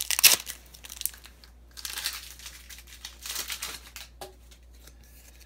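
Foil wrapper of a 2016 Donruss football card pack crinkling and tearing as it is opened, in several crackly bursts, the loudest right at the start.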